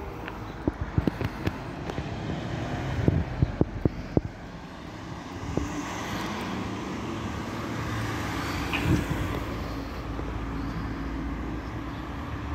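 Footsteps tapping on pavement, a string of sharp steps in the first four seconds, then a motor vehicle approaching and passing, its engine and tyre noise building to a peak about two-thirds of the way in.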